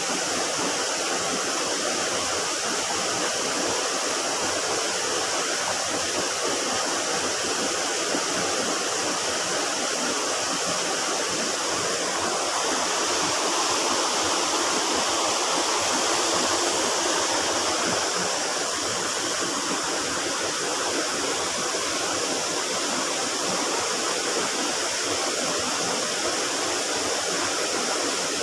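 A river running and splashing: steady rushing water, like a small stream flowing over rocks or a weir.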